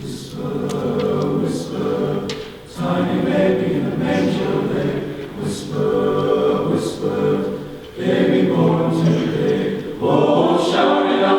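Men's chorus singing together in phrases, with short breaks between phrases every two to three seconds.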